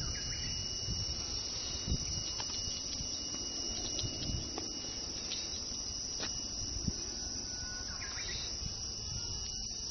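Insects droning steadily in the surrounding trees, one high, even tone that does not stop, over a low outdoor rumble with a few soft knocks.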